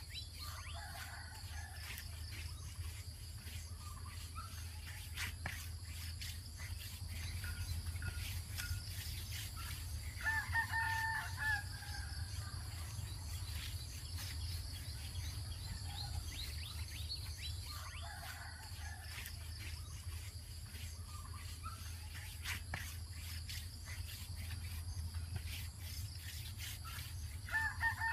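Roosters crowing in the distance: two clear crows, about ten seconds in and again near the end, with fainter crows elsewhere, over a steady low hum.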